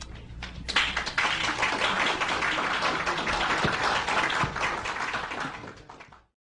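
Audience applauding: many hands clapping, starting about a second in and dying away near the end.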